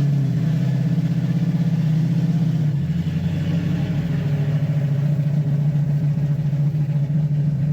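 1965 Ford Mustang's engine running steadily with its clutch engaged, a low, even drone.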